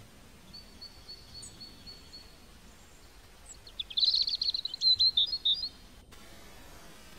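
A bird calling: a row of short, evenly spaced high notes, then about four seconds in a louder, rapid chattering phrase of high notes lasting about two seconds. Near the end the background hiss changes abruptly.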